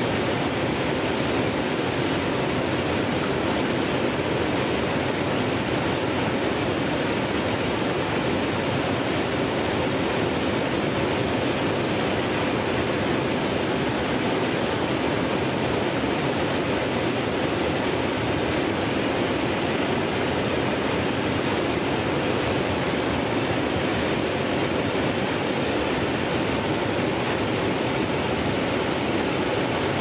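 Small waterfall cascading over rock ledges into a shallow stream: a steady rush of falling and splashing water.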